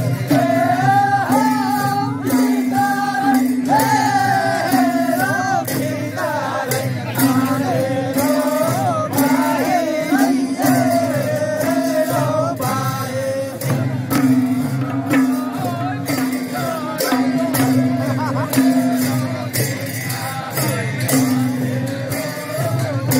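Nepali Bhailo folk song: a voice sings a wavering melody over held low notes and a steady jingling percussion rhythm.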